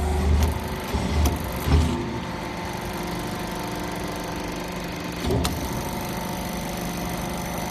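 Hydraulic sawdust briquette press running with a steady hum from its hydraulic power unit. A few dull knocks come in the first two seconds as the multi-punch ram presses down into the mould, and one more about five and a half seconds in.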